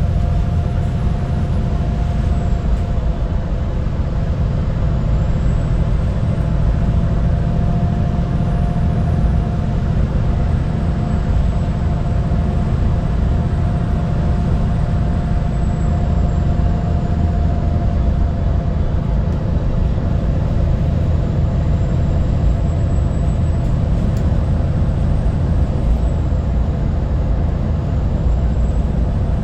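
VDL SB200 single-deck bus heard from inside while under way: a steady engine drone and road rumble, with a constant mid-pitched tone and a faint high whine that drifts slowly up and down in pitch.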